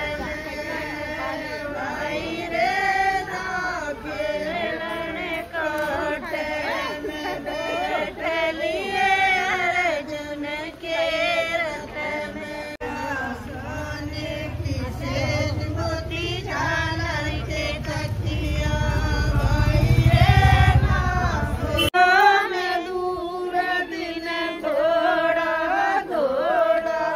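A group of women singing together, unaccompanied, a folk-style celebratory song with long held notes. A low rumble runs beneath the singing through the middle part.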